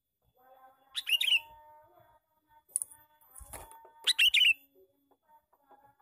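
Male sooty-headed bulbul (kutilang) calling: two short, loud, bubbly phrases of chirps about three seconds apart, with a softer single chirp and a sharp knock between them.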